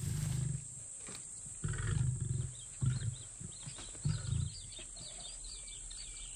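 Lions growling low and rough in four short bouts: one at the start, two around two to three seconds in, and a last one about four seconds in.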